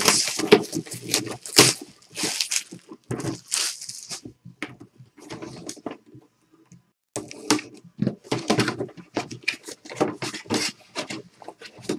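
Plastic shrink-wrap crinkling and being torn off a cardboard box, then the box and its cardboard flaps being handled and opened, in irregular scratchy clusters with a pause about five to seven seconds in.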